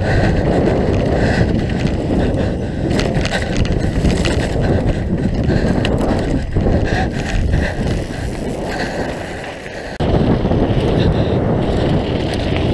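Mountain bike descending a dirt downhill trail: the knobby tyres rumble over the loose surface while the bike clatters over bumps and wind buffets the helmet-mounted microphone. The noise dips briefly and then jumps back up about ten seconds in.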